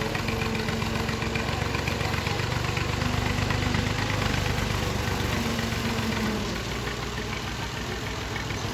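Heavy diesel engine of earth-moving machinery running steadily, a little louder about three to four seconds in and easing off after about six seconds.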